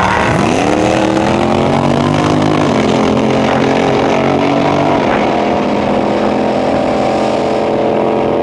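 Pontiac GTO drag car's V8 launching at full throttle, its pitch climbing steeply with two upshifts, about 2.5 and 5 seconds in, each marked by a sudden drop, then holding high as it runs down the strip with a second car racing alongside.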